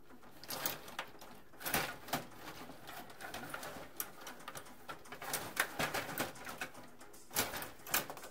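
STIGA table hockey game in play: irregular clicks and clacks of the players' control rods being pushed, pulled and spun, and the puck knocking against the plastic figures and boards, in small clusters.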